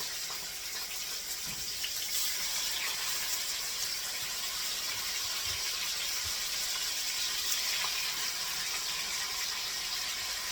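Chicken breasts frying in hot bacon grease in a pan: a steady sizzling hiss.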